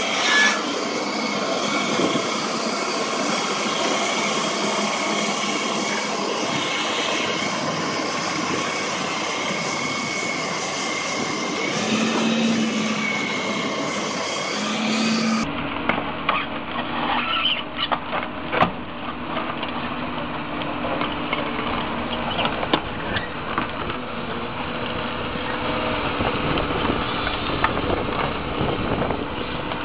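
Crawler excavators running under load on steep dirt slopes, engine and hydraulics working steadily with track noise. At a cut about halfway through, the sound switches from a John Deere excavator to a Doosan excavator. The Doosan's part is duller and carries scattered sharp clanks and knocks.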